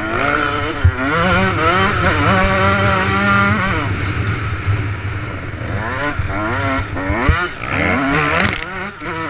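Motocross bike engine heard close up from a handlebar-mounted camera, revving hard as the rider accelerates, holds the throttle, backs off about four seconds in, then climbs again in rising surges near the end. A few sharp knocks from the bike over the track, the loudest about a second in and about seven seconds in.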